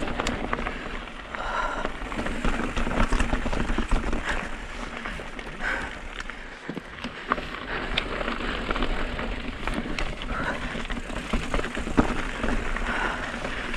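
Mountain bike riding over a rocky, chunky trail: tyres crunching on rock and gravel, with frequent short clicks and rattles from the bike.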